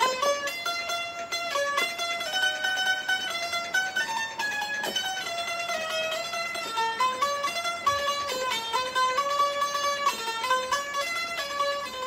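Bulbul tarang (Indian keyed box zither) played solo: a melody of notes stepping up and down, each note sounded with fast repeated strumming.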